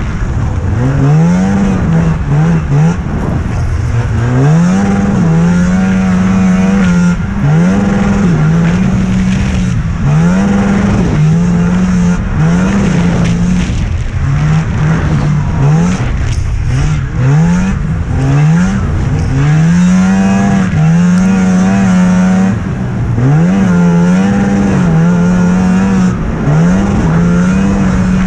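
Youth snowmobile engine racing hard over a rough course. Its note climbs and holds steady at full throttle, then drops briefly as the throttle is let off, more than a dozen times.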